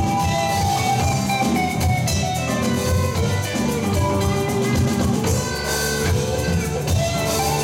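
Live rock band playing an instrumental passage: a Telecaster-style electric guitar over drums and bass guitar.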